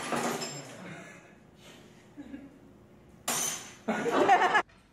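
A glass pane struck with a hammer and breaking: a crash with glass ringing and tinkling that fades over about a second, then a second sharp strike and crash a little past three seconds in.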